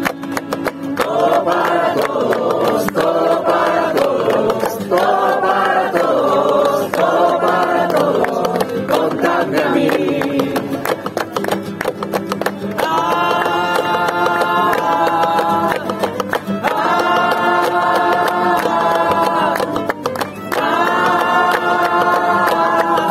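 Live acoustic song: singing over a strummed acoustic guitar and a violin, with the crowd clapping along in time. In the second half the voices hold three long notes.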